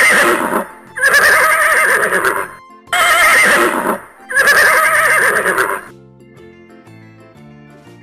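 Horse neighing: a run of four quavering whinnies, each a second or so long with short gaps between them, the first already under way at the start. From about six seconds in, only soft background music continues.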